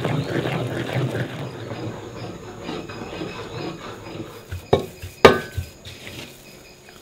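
Kitchen utensil sounds: a wooden stirring stick scraping through flour and dough in a metal bowl, with two sharp knocks about half a second apart near the middle, the second ringing briefly like the utensil striking the bowl.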